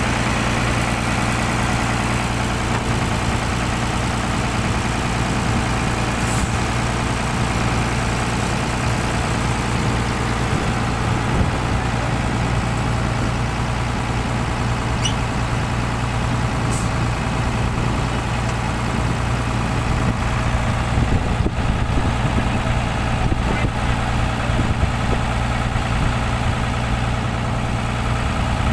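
The engine of a crawler-mounted winch rig running at a steady idle.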